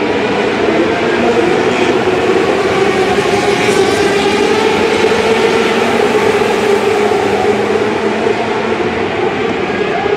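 A pack of small open-wheel dirt-track race cars racing together, their engines blending into one loud, steady drone that echoes through an enclosed arena.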